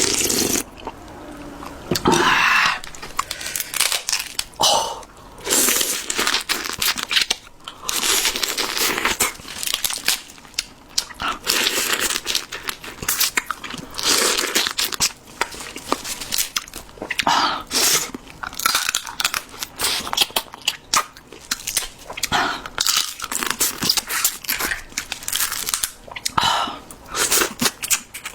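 Close-up eating of seafood ramen: repeated bites, chewing and crunching, with slurps of noodles and broth, coming in short bursts every second or two.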